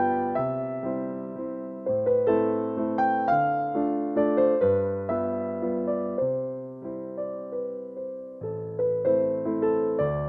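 Background music: a gentle electric piano playing a repeating melody over changing chords.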